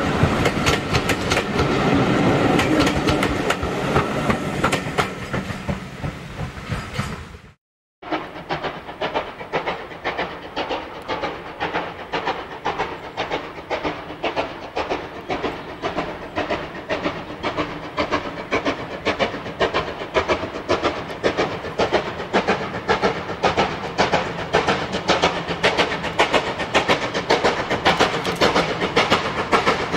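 Railway coaches rattling over rail joints as they pass, fading away. Then a steam locomotive approaching under steam, its exhaust beating steadily at about two beats a second and growing slightly louder as it nears.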